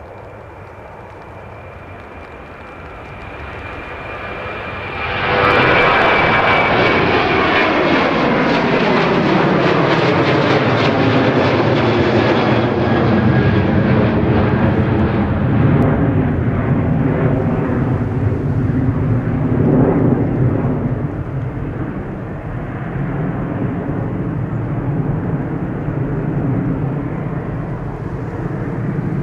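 Four-engined Douglas DC-8 jet engines running at high power. They jump sharply louder about five seconds in, then slide down in pitch as the aircraft passes, and ease to a steadier, lower sound with less of the high whine.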